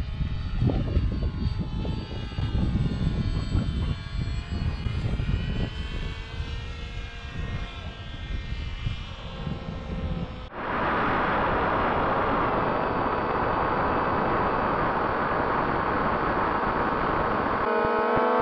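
The twin 2212 brushless electric motors and pusher propellers of a home-built RC airplane whine as it flies past, the pitch sliding up and down, under gusty wind noise. About ten seconds in, the sound cuts to a louder, steady whir of motors and propellers close up, then to a stronger steady motor whine near the end.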